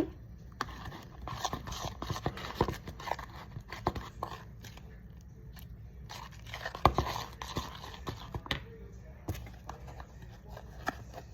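Slime mixture being stirred in a container: irregular scraping and clicking of the utensil against the sides, with a sharper knock about seven seconds in.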